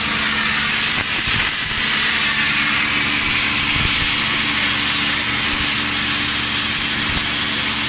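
Plasma torch of a CNC pipe-cutting machine cutting steel pipe: a steady, loud hiss with a low hum underneath.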